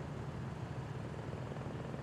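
A vehicle engine running steadily at idle, a constant low rumble with street background.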